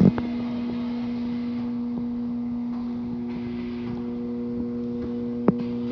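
A steady low mechanical hum, with a single sharp click about five and a half seconds in.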